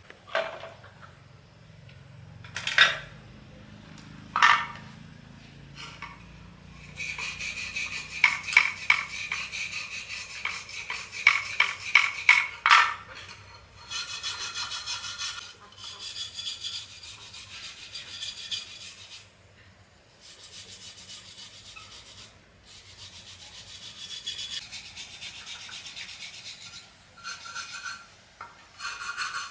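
A few separate knocks, then from about a quarter of the way in, quick rubbing and scraping strokes, like a part being sanded or scrubbed by hand. The strokes come in stretches that stop and start.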